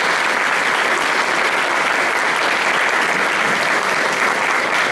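Audience applauding: steady clapping of many hands.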